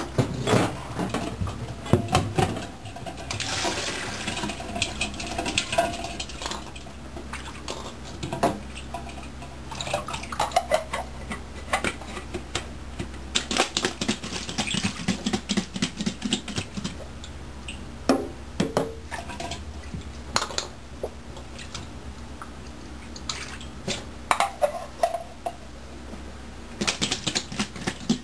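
Boiled quail eggs shaken in cold water inside a stainless steel bowl covered with a small soup bowl, clicking and rattling against the metal in bursts, with water sloshing. The shaking cracks the shells all over so they peel easily.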